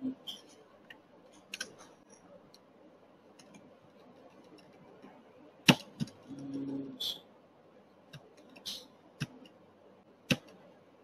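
Irregular sharp clicks of a computer mouse and keyboard, a few of them louder, with a short low hum about six seconds in.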